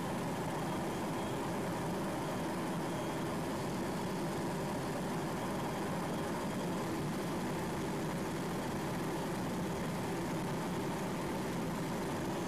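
Helicopter in flight: a steady drone of turbine engines and rotor with no change in level.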